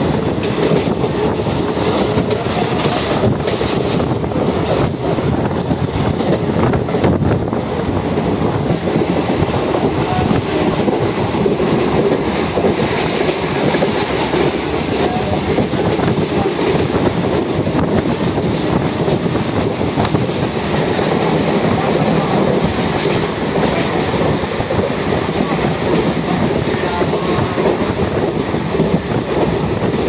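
Train running along the track, heard from aboard a coach: a steady, loud rumble and rattle of the wheels on the rails.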